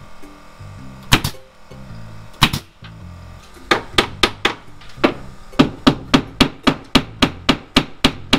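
Hammering on siding during wall installation: two single sharp strikes, then a quick even run of strikes, about four a second, from about halfway on.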